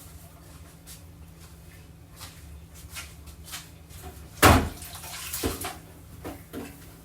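Groceries being handled and set down in a refrigerator: scattered light clicks and rustles, a loud knock about four and a half seconds in, then more clattering.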